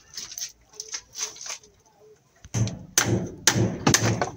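Claw hammer driving nails into timber formwork: a run of sharp blows, about two a second, starting about halfway through.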